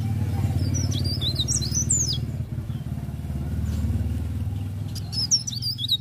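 A caged cikrak daun leaf warbler sings quick, high, twisting phrases twice: once about a second in, and again near the end. A steady low engine drone runs under it and is louder than the bird.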